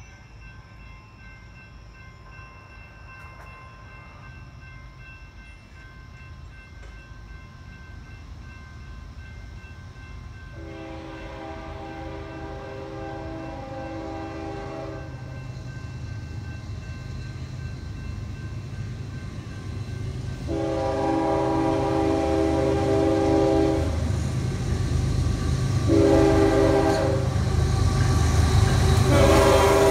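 Approaching diesel locomotive, its low engine rumble growing steadily louder as it nears. Its air horn sounds two long blasts, a short one and another long one, the standard warning pattern for a grade crossing.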